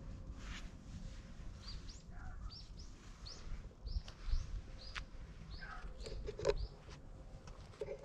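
A small bird calling nearby with a quick series of short, high chirps, each falling in pitch, from about two seconds in until past six seconds.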